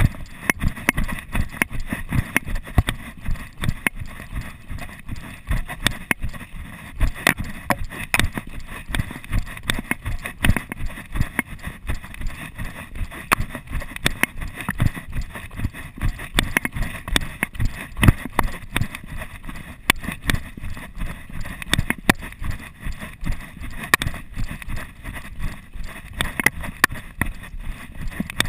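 Running footsteps on a dirt trail: a quick, even series of thuds, picked up through a chest-mounted GoPro action camera that moves with the runner's body.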